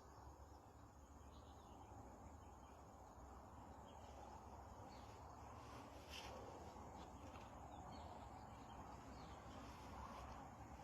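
Near silence: faint outdoor ambience with a low steady hum and scattered faint high chirps, the clearest about six seconds in.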